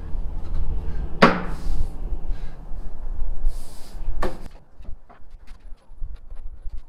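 Two sharp knocks about three seconds apart, the first the louder, over a low rumble, followed by a few light clicks.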